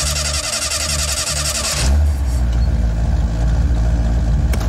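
Car engine started with the ignition key: it cranks, catches about two seconds in, and settles into a steady low running.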